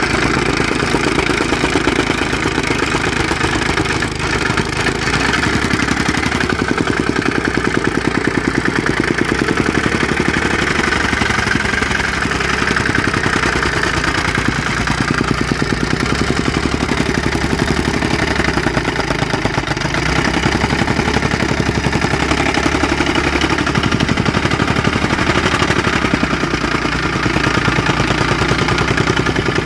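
Petrol-engine soil compactor running steadily, its engine and tamping mechanism giving a fast, even clattering pulse.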